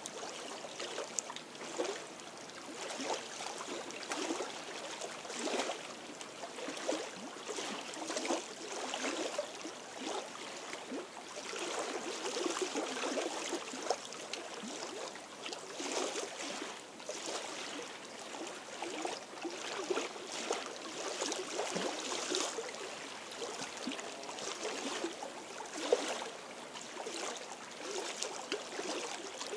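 Small lake waves lapping and splashing irregularly against stones at the shore.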